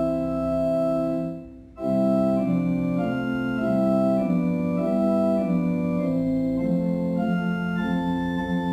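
Organ playing a hymn tune in held chords that move step by step, with a short break about a second and a half in before the next phrase.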